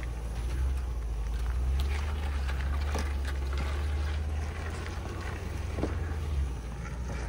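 2010 Land Rover LR4's engine running with a steady low drone while driving the trail, with scattered faint clicks and knocks over it.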